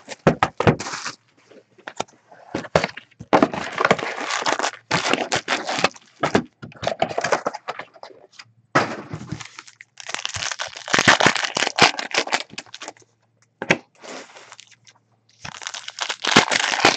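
Foil-wrapped trading-card packs and their cardboard box being handled: crinkling, rustling and tearing with sharp clicks, coming in bursts of a second or a few seconds with short pauses between.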